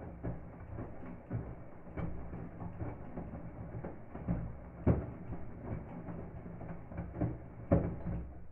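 Indesit front-loading washing machine in its main wash, the drum turning and tumbling the wet, soapy laundry: water sloshing over a low motor hum with a run of soft thuds as the load drops, two of them loud, about five seconds in and near the end.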